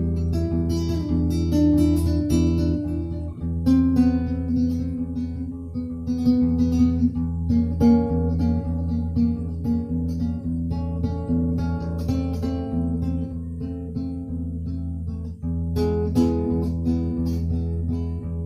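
Acoustic guitar playing, with notes picked and strummed.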